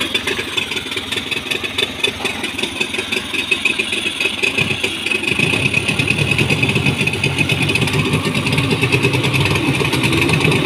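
Suzuki DT30 two-stroke outboard motor running in a test barrel of water, its propeller churning the water. About five seconds in it picks up speed and runs louder and heavier.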